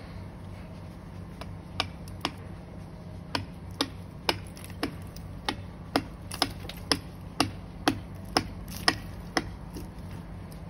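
Hammer striking a metal rod driven into the ice that clogs a PVC roof-drain pipe. There are sharp metallic taps starting about a second and a half in, about two a second, with a few short pauses. The rod is being hammered through the ice to open the frozen drain.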